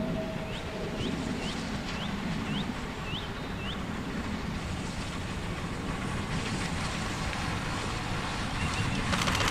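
Rebuilt Bulleid Battle of Britain class Pacific steam locomotive 34053 working a train as it approaches: a steady, rumbling exhaust and running noise that grows louder near the end as clicking wheel noise builds. A small bird gives a run of about seven short rising chirps in the first few seconds.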